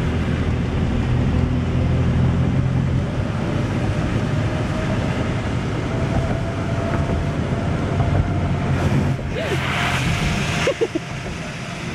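Steady engine and tyre noise heard inside a car driving on rain-soaked streets. About nine seconds in, a hissing rush lasting a second or two as the car hits standing water and the spray comes up onto the windshield.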